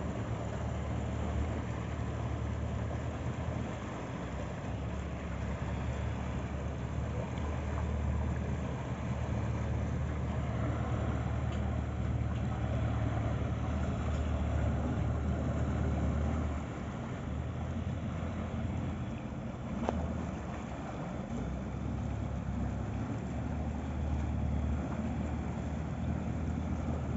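Motorboat engine running steadily, a low rumble, with wind on the microphone.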